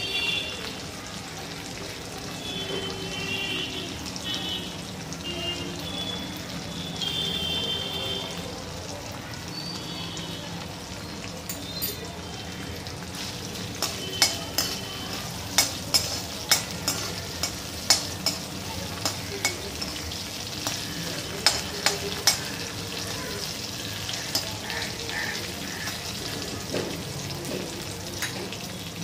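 Peanuts frying in a little oil in a metal kadhai, sizzling steadily. From about halfway through, a metal spoon stirs them, clicking and scraping against the pan in a run of sharp taps.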